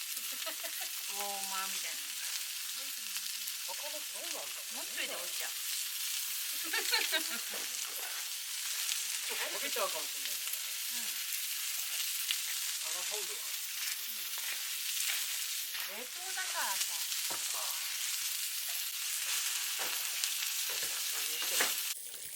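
Food frying with a steady sizzle, with short squeaky stirring sounds now and then and a knock near the end.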